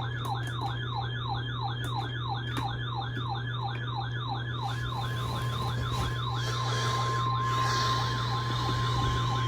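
Emergency alert tones for a flash flood warning on weather radio: an electronic siren sweep falls in pitch about three times a second, and about halfway in a steady single alert tone near 1 kHz joins it. A low electrical hum runs underneath.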